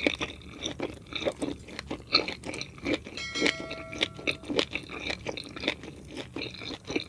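Close-miked mouth sounds of food being chewed, with irregular crunching and wet clicks.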